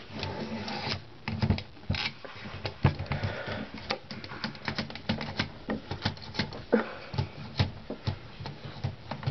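Irregular metal clicks and knocks from a Blickensderfer typewriter's carriage and mechanism being worked by hand, with the spacebar held down to free the carriage for removal.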